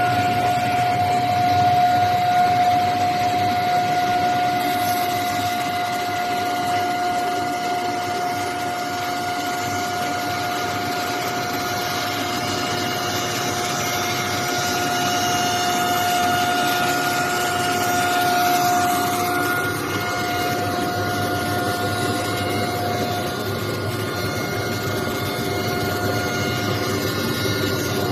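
Veneer saw and milling machine running: a steady motor whine with one constant tone over broad machine noise. The whine fades out about three-quarters of the way through and comes back at the very end.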